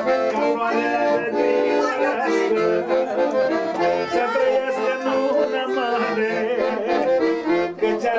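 Accordion playing a fast, ornamented traditional wedding melody, with quick runs of notes over a steady accompaniment.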